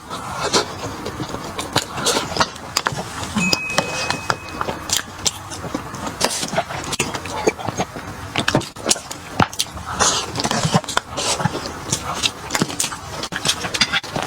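Close-up sounds of a person eating: chewing, crunching and mouth clicks, coming irregularly several times a second.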